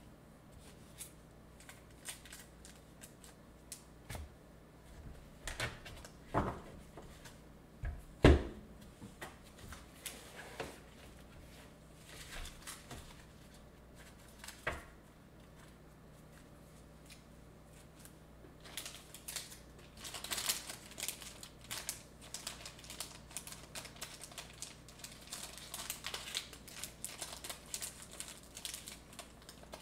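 Small clicks, taps and knocks of things being handled and put away on a tabletop, with one heavy thump about eight seconds in. Over the last ten seconds or so the clicks come thick and fast.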